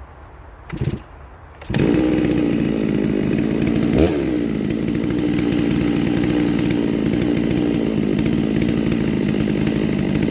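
Neo-tec NS892 two-stroke chainsaw starting up. It fires a little under two seconds in, gives one quick rev about two seconds later, then runs steadily as it warms up.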